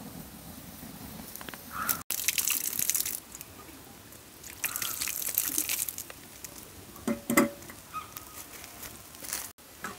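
A metal pot being handled at a charcoal grill: two bursts of hissing noise about two and five seconds in, then a metal clank about seven seconds in.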